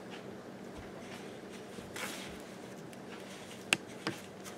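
Soft rustling of breadcrumbs as gloved hands roll chicken wings in a paper plate of crumbs, with two sharp clicks near the end, over a faint steady hum.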